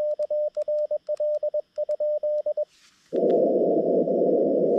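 Morse code sidetone from a Xiegu G90 transceiver: a single steady tone keyed in dots and dashes from a BaMaTech TP-III paddle for about three seconds, with the receiver's hiss muted while sending. After a short pause the receiver's band hiss comes back, about three seconds in.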